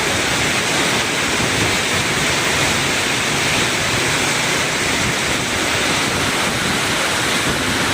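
Heavy rain pouring down in strong wind, a dense, steady hiss that stays at one level throughout.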